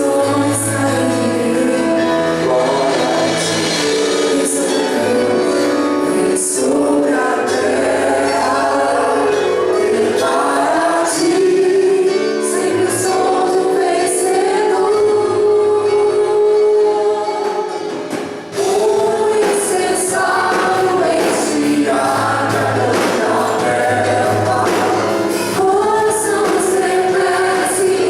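Church worship team singing a gospel song, several voices together in choir fashion over instrumental backing with bass and cymbals. The sound dips briefly about two-thirds of the way through, then carries on.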